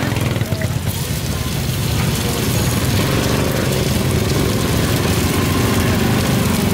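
A vehicle engine running steadily, with a low, even throb that strengthens about two seconds in, over constant street noise.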